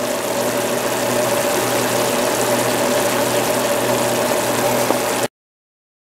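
A steady electric motor hum with an even hiss over it, as from a running kitchen fan or appliance. It cuts off abruptly about five seconds in.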